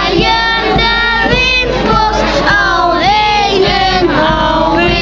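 A group of children singing together, several voices at once, with no break.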